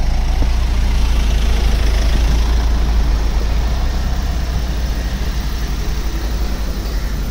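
An engine idling close by: a steady low rumble that grows a little quieter near the end.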